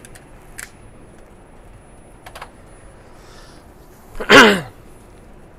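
A few faint clicks, then about four seconds in a short, loud vocal burst from a man, falling in pitch.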